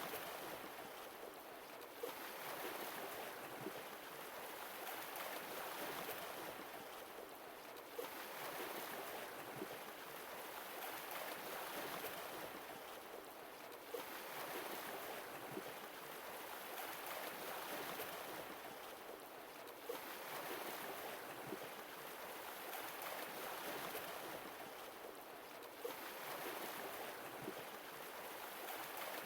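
Recorded sea waves washing in, a rushing noise that swells and eases about every six seconds, with a short click at the start of each swell.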